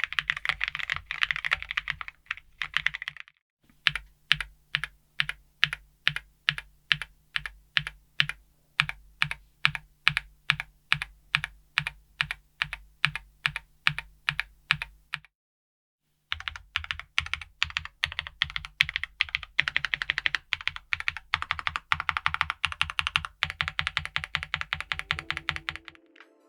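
Typing on a Keychron Q3 Ultra 8K aluminium gasket-mount keyboard with Keychron Silk POM Brown tactile switches and thick PBT keycaps. Fast typing gives way to slow, evenly paced keystrokes at about three a second, then after a short break fast typing resumes.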